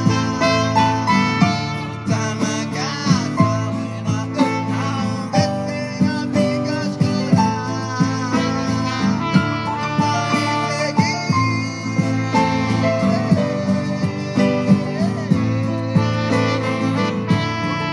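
Live instrumental music: a piano played with other instruments, with a steady pulse of struck notes and a melody line that slides in pitch a few times.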